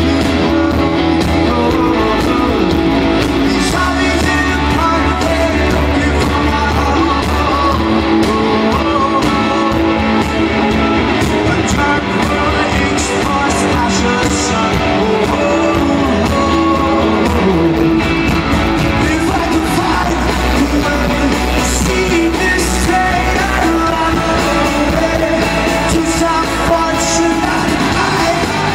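Live rock band playing with a lead singer, loud and amplified.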